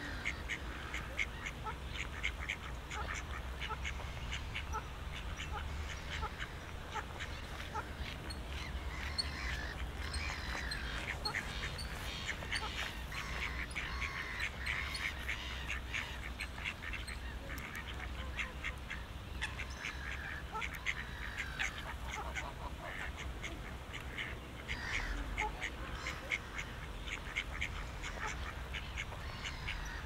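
Ducks quacking, many short calls overlapping at an uneven pace, over a steady low rumble.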